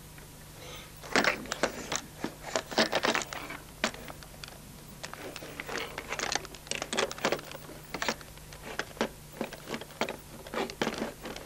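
Heavy raindrops striking a hard surface close to the microphone: a rapid, irregular series of sharp taps and clicks that starts about a second in.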